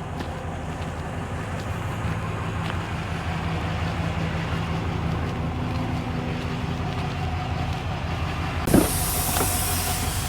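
Truck engine running steadily with a low hum. A knock sounds about three-quarters of the way in, and a high hiss starts with it and holds to the end.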